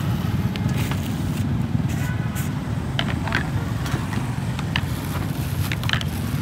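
An engine idling steadily, a low even rumble, with a few short crinkles of a plastic bag about three seconds in and again near the end.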